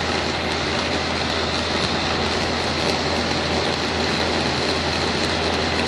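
Lasko box fan running at high speed with its inlet blocked by a plastic trash bag: a steady rush of air over a constant low hum.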